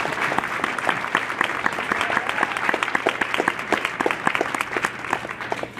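Audience applauding, many hands clapping, easing off near the end.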